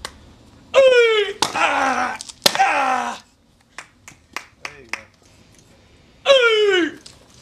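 A martial artist's loud kiai shouts, each falling in pitch, with two sharp cracks of strikes against a held wooden board between them, a few scattered claps, and another shout near the end.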